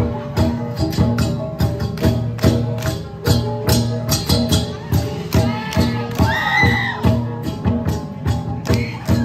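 Central Highlands cồng chiêng gong ensemble playing: flat gongs struck with beaters in a steady, even rhythm of a few strokes a second, their tones ringing on between strokes.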